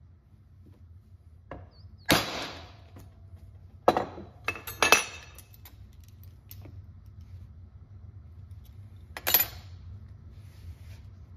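Restored metal belt buckle clinking and jingling as it is handled and set on the bench. There is a short jingle about two seconds in, a quick run of clinks around four to five seconds, and one more clink near nine seconds.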